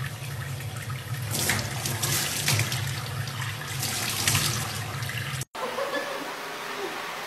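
Water running from a faucet into a stainless steel sink, with louder splashes as a baby chimpanzee's hand breaks the stream. The water cuts off abruptly about five and a half seconds in, leaving a quieter steady hiss.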